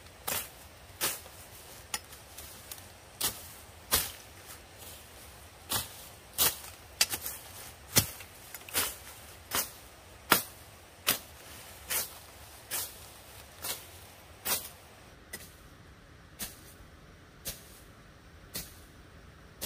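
Machete chopping through ferns and undergrowth: a steady run of sharp cutting strokes, about one every three-quarters of a second, spacing out to about one a second in the last few seconds.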